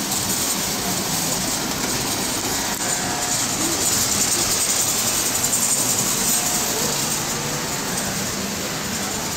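Toy electric trains running on three-rail tinplate track: a steady whirring, rolling noise with a faint low hum underneath.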